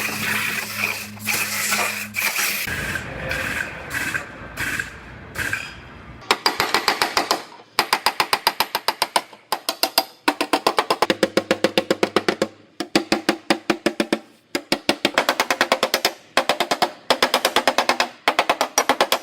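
Pneumatic air hammer (air chisel) hammering through car body sheet metal in rapid strokes, about ten a second, in runs of a second or two with short pauses, as the quarter panel is cut apart. The first few seconds, before the hammering starts, are a steady air hiss.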